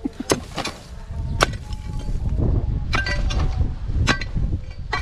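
A metal pipe jabbed into dirt and rocks at a burrow, giving several sharp metallic knocks and clinks over a low scraping rumble.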